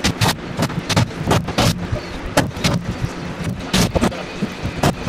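Cordless impact driver run in short bursts to tighten nuts onto the hull bolts of an aluminium boat, giving irregular sharp bangs a few times a second over a steady low hum.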